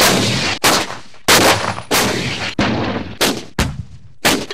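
Artillery guns firing in quick succession: about eight sharp reports, each followed by a short rumbling tail.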